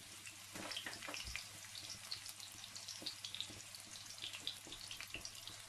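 Sliced onions sizzling in hot cooking oil in a frying pan, with many small irregular crackles as they start to fry.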